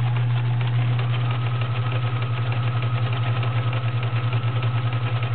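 Vintage Kenmore 1357 sewing machine with its 1.0-amp motor running steadily, stitching a stretch zigzag that feeds the fabric forward and back. A steady motor hum sits under a rapid, even clatter of needle strokes, and a faint higher whine joins about a second in.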